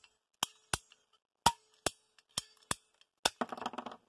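Ratcheting plastic-pipe cutter clicking sharply with each squeeze of the handles, about seven clicks at uneven intervals, as its blade is driven through PVC electrical conduit. A short run of quick crackles comes near the end as the cut goes through.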